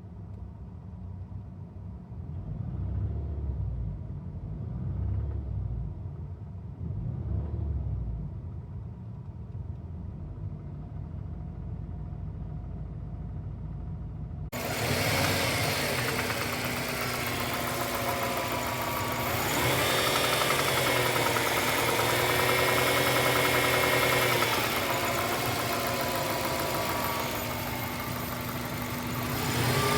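Subaru EJ205 turbocharged 2.0-litre flat-four engine running at low rpm with a knocking sound, revved up and back down once or twice. About halfway through, the sound turns suddenly much clearer and brighter.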